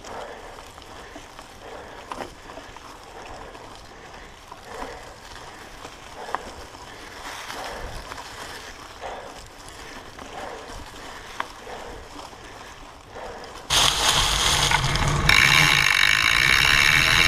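Mountain bike rolling over dry fallen leaves on a dirt trail, the tyres crunching through the leaves, with occasional sharp clicks from the bike. Near the end it suddenly becomes much louder: close-up drivetrain noise, with the chain clattering and ratcheting over rough dirt.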